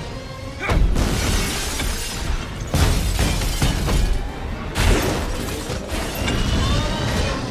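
Film fight sound effects of heavy crashing debris and shattering glass, with several big impacts about two seconds apart, over orchestral score.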